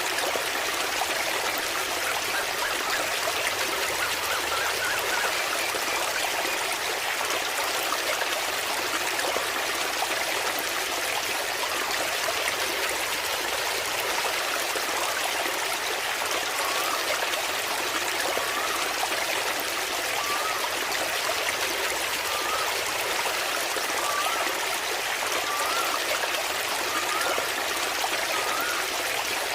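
Waterfall water splashing and running in a steady rush. In the second half a short rising chirp repeats every second or two over it.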